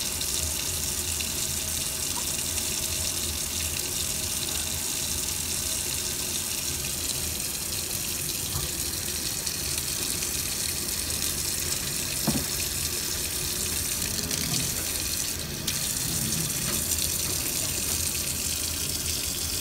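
Tap water running steadily into a sink, with a brief dip in the flow about fifteen seconds in.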